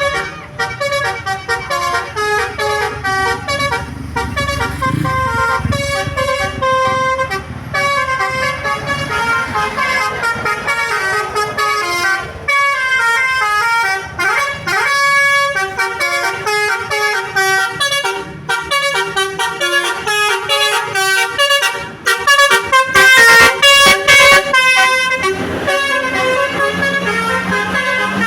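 Bus 'telolet' Basuri horn playing melodies, a quick run of changing pitched notes that repeats throughout, loudest about three-quarters of the way through.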